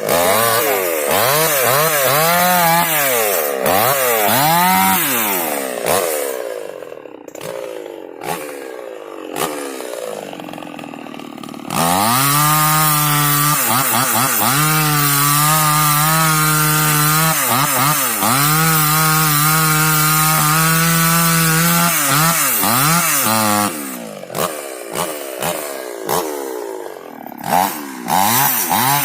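Dolmar two-stroke chainsaw revved in repeated short bursts, easing back to a lower, quieter running for several seconds, then held at high revs for about twelve seconds with small dips as it cuts into wood, followed by more quick revs near the end.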